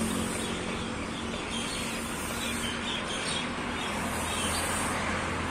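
Steady road traffic noise with birds chirping now and then over it, the chirps mostly in the middle.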